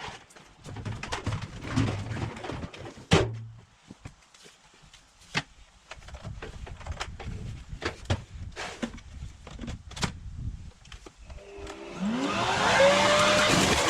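Scattered clicks and knocks of handling, then about twelve seconds in the Black & Decker BEBLV301 electric garden blower-vacuum switches on, its motor and impeller whining up in pitch and settling into a loud steady blowing run.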